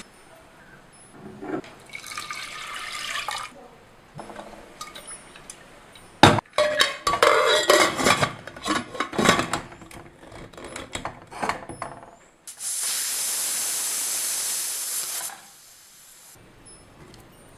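Water poured into a steel pressure cooker, then a run of metal clattering and scraping as the pot and lid are handled. About twelve and a half seconds in, the pressure cooker whistles: a loud, steady hiss of steam from the weight valve for about two and a half seconds that cuts off sharply, the sign that the cooker has come up to pressure.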